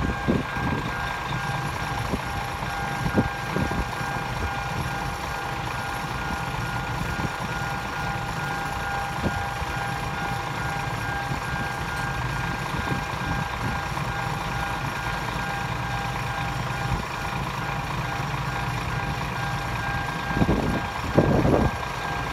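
Electronic warning bell of a railway level crossing sounding continuously while the barriers are down, over a low rumble of waiting traffic.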